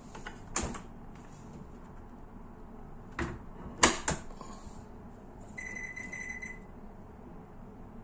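Door latch of a Super General SGW6100NLED front-loading washing machine clicking as the door is handled, with a few sharp clicks, the loudest about four seconds in. A little later the machine's control panel gives one steady electronic beep lasting about a second.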